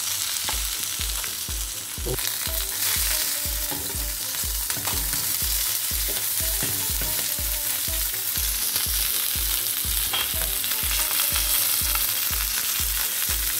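Trout fillets frying in hot olive oil in a pan: a steady, dense sizzle as the fish crisps. A regular low pulse runs underneath, about three times a second.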